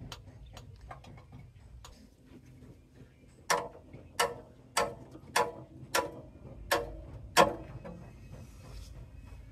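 Seven sharp metal-on-metal knocks about two-thirds of a second apart, each with a short ring, as hand tools are worked against the underside of a truck chassis; faint light ticks come before them.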